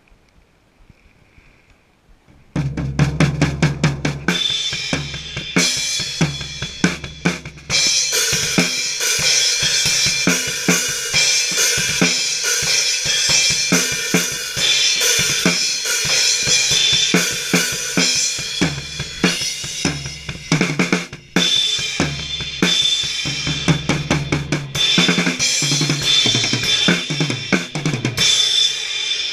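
A drum kit played hard with sticks: kick drum, snare, toms and Zildjian crash and hi-hat cymbals. It starts about two and a half seconds in with a burst of quick strokes, then settles into a loud beat with the cymbals ringing almost all the way through. Near the end the cymbals ring out.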